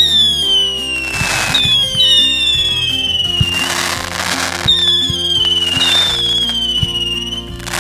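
Fireworks going off: about five whistling shells, each a falling whistle lasting one to two seconds, between bursts of bangs and crackle.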